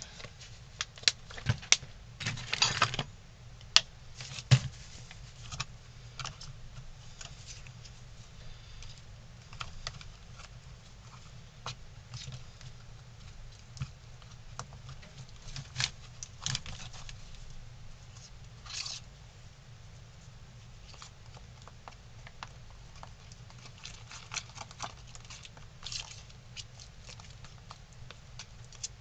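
Irregular clicks, taps and scrapes of a small knife stirring wood filler in a plastic tub, working in water to thin it to a paste. In the first few seconds a plastic water bottle crinkles and clicks.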